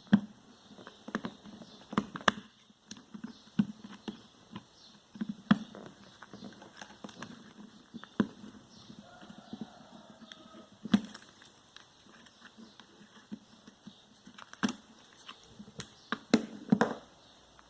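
Irregular small clicks and taps, a few sharper ones, of hands and fingers working a wire connector off the fan motor's leads.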